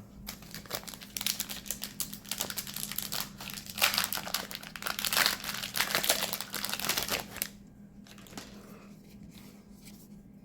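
Foil wrapper of a Magic: The Gathering collector booster pack being torn open and crinkled in the hands, a dense crackling that stops about seven and a half seconds in.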